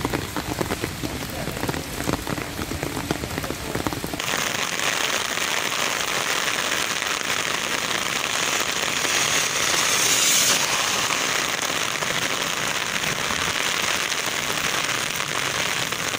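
Heavy rain pouring onto a road and wet ground, a dense steady hiss with pattering drops. There is a low rumble under it for the first four seconds, then the sound changes abruptly to a brighter, even hiss of rain.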